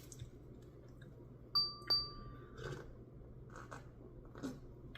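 Two quick dings about a third of a second apart, each ringing on briefly, followed by a few faint clicks.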